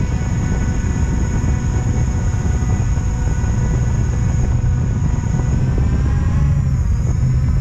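Quadcopter drone's motors and propellers whining steadily over a heavy low rumble; the pitch dips and comes back up near the end.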